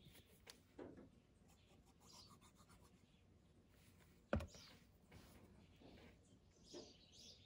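Faint crafting handling sounds: small paper pieces rustling and tweezers touching a paper journal page, with one sharp tap a little over four seconds in.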